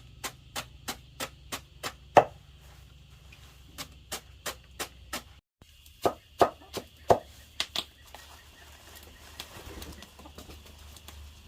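Rapid, regular chopping strikes, about three a second, with one much louder blow about two seconds in. The chopping stops and starts again after a short break, ends about eight seconds in, and a soft rustling follows.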